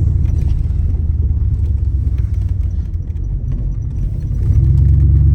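A vehicle's engine and road rumble: a loud, steady low hum that eases slightly in the middle and swells again near the end.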